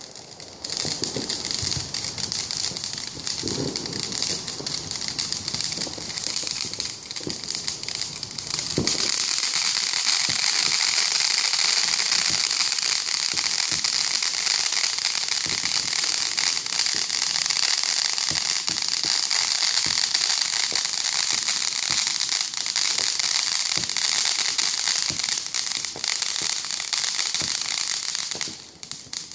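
Fireworks crackling densely and continuously, with a few low booms in the first several seconds before the crackle swells and holds steady, then drops away just before the end.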